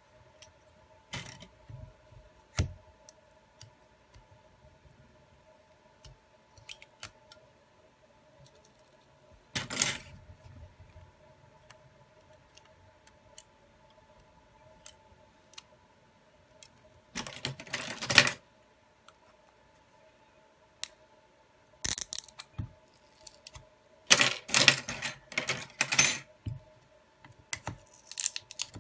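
Small parts of an opened Huawei Y9a smartphone being handled and pried: irregular clicks and a handful of short scraping, rattling bursts, the longest about a second, with a cluster of them near the end. A faint steady hum runs underneath.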